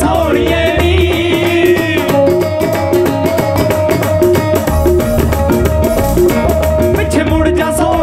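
Live Punjabi folk music: a male singer holds a wavering note for about the first two seconds over tabla and a steady melodic accompaniment, and the band plays on with the tabla rhythm after the voice drops out.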